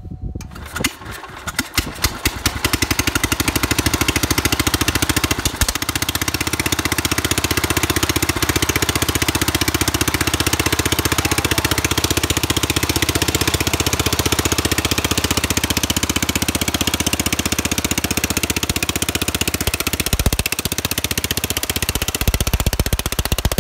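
Wheel Horse 856 garden tractor's 8 hp Kohler single-cylinder engine being started: it sputters and catches within the first couple of seconds, then runs steadily and loudly.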